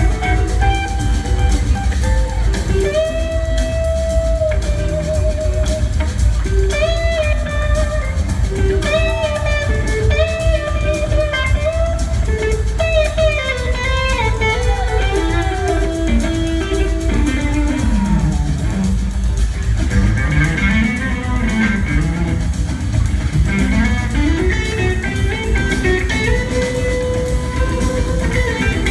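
Live electric blues-rock band jamming: an electric guitar solo of held, bending notes that glide down in a long falling run partway through and climb again later, over steady drums and bass.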